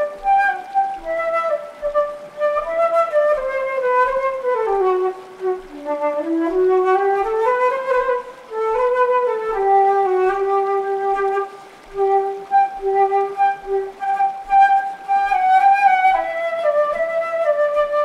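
Solo concert flute improvising a slow melody: the line steps down to its lowest note about six seconds in, climbs back up, then settles into long held notes.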